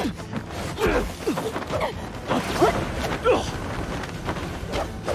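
Staged martial-arts fight: a quick run of swishes and blows, several short sweeping sounds and impacts in about five seconds.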